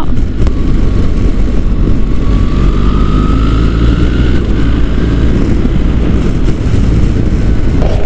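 BMW R1300 GS's 1300 cc boxer twin running on the move, under heavy wind rush over the bike-mounted microphone. A faint thin whine climbs slowly in pitch over the first half.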